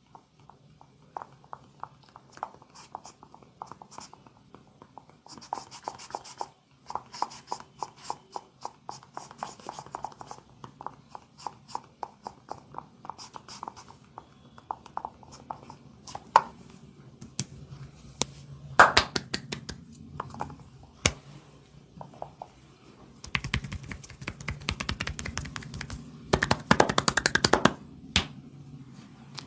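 Hands working during a massage: a long run of quick taps and pats, then a louder stretch of fast rubbing about three-quarters through.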